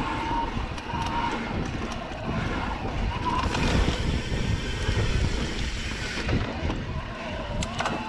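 Wind buffeting the microphone and mountain bike tyres rolling over a dirt singletrack. From about three and a half to six seconds in there is a brighter rustling hiss as ferns brush against the bike.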